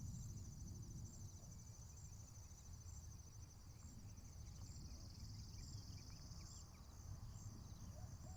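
A faint, steady high-pitched chorus of chirring insects, typical of crickets, with a fine rapid pulse.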